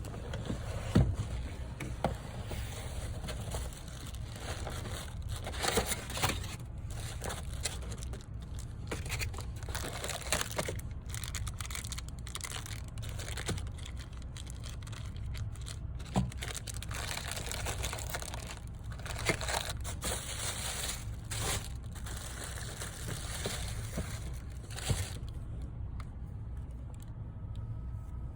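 Close handling noises: rustling and scraping with irregular sharp knocks, over a steady low rumble.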